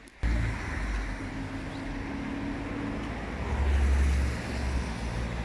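Wind buffeting the microphone in a steady low rumble that cuts in abruptly just after the start and swells briefly near the middle, with street traffic behind it.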